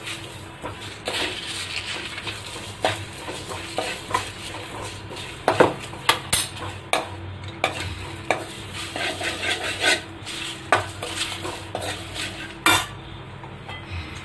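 A steel ladle stirring and scraping whole spices (cumin and coriander seeds, bay leaves, dried red chillies) as they dry-roast in a hot kadai, with irregular clinks of metal against the pan. The stirring stops near the end.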